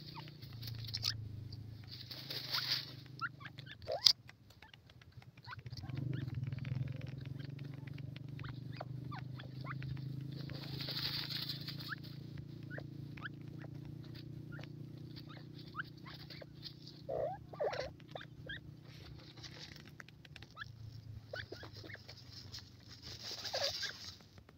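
Grey francolins dust-bathing in dry loose soil: scratchy rustling and patter of earth and feathers, with three louder hissing flurries as they shake and flick dust, over a low steady hum.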